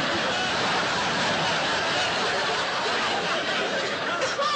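Large studio audience laughing, one long unbroken laugh at an even level.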